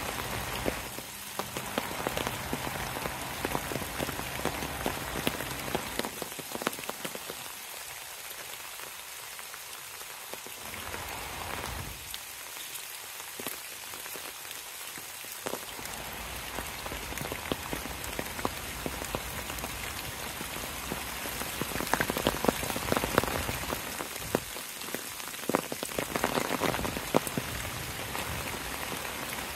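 Steady rain pattering on tree foliage and fallen autumn leaves, with many individual drops ticking close by. The patter swells and grows louder for a few seconds near the end.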